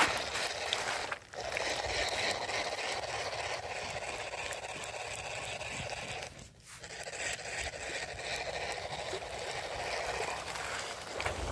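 Water splashing and trickling, a steady rushing hiss that drops away briefly twice.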